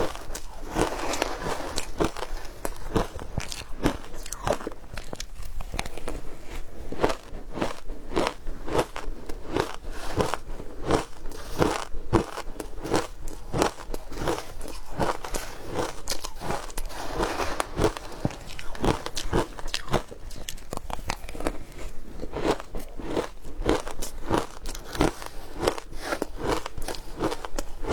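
A person chewing frozen matcha ice, steady crunching at about two bites a second.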